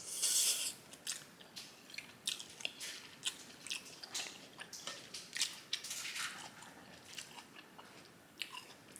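Close-miked mouth sounds of a person eating a bite of japchae: wet chewing with many short smacking clicks, after a brief loud airy burst at the start.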